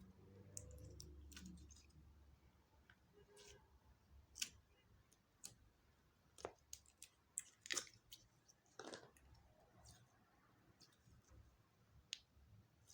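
Clear slime being mixed and squeezed by hand: scattered quiet sticky clicks and small pops, the loudest a little past four seconds in and around eight seconds in.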